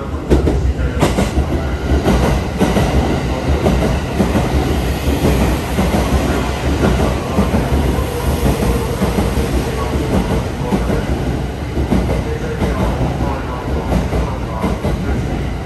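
The Sunrise Express, a 285 series electric sleeper train, running into the platform close by: a steady rumble of wheels on rail, with repeated clacks as the wheels pass over rail joints.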